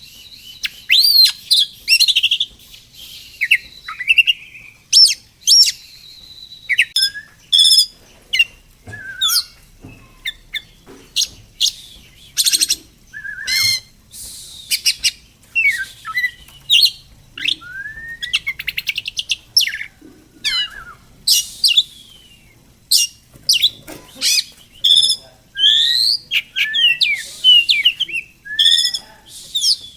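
Songbirds chirping and singing: a steady run of short rising whistles and fast trills, one after another.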